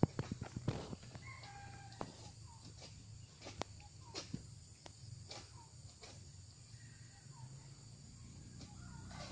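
A quick run of sharp knocks and clicks in the first second, then scattered single clicks, as a long-poled harvesting sickle works at an oil palm's crown. A rooster crows faintly in the background.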